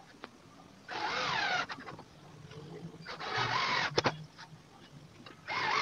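Cordless drill-driver driving screws to fix a straight cup hinge onto a melamine cabinet door: three short runs of motor whine, each under a second, with a sharp click just after the second.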